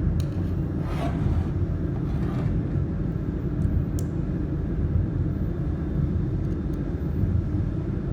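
Steady low machine rumble, with a few faint clicks near the start and about four seconds in.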